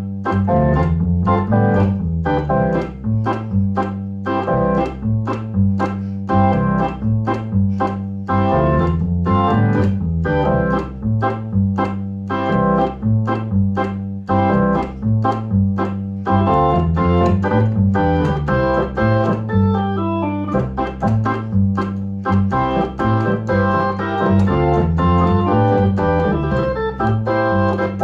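Electric organ playing short, choppy offbeat ska chords, about two a second, over a bass line that steps up and down in the low register.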